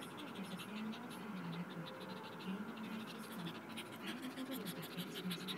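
Quick scratching and clicking, many small scrapes a second, over a faint low tone that wavers in pitch.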